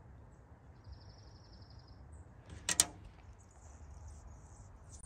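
Faint, quiet outdoor background with light high-pitched chirps, once as a short pulsed trill and then scattered. A single sharp knock or click, the loudest sound here, comes a little past halfway.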